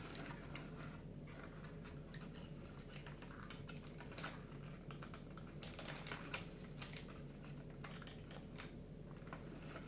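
Light, irregular clicks and scrapes as the pieces of a 3D puzzle model are handled, slotted and pressed together.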